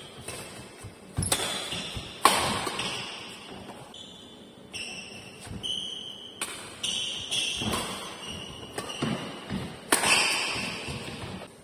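Badminton rally: several sharp racket-on-shuttlecock hits that echo in a large hall, mixed with short high squeaks of court shoes and footfalls.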